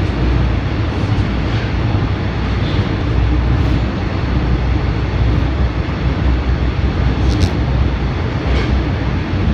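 Toronto subway train running through a tunnel, heard from inside the car: a steady rumble of wheels on rails, with a brief high squeak about seven seconds in.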